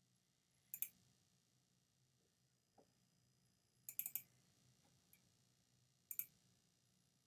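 Computer mouse clicking: three quick double-clicks, about a second in, about four seconds in and just after six seconds.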